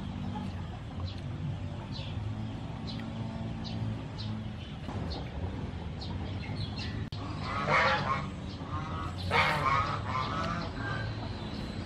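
Farmyard fowl calling in two loud bouts, about eight and nine and a half seconds in, over a steady low hum and faint high chirps that repeat throughout.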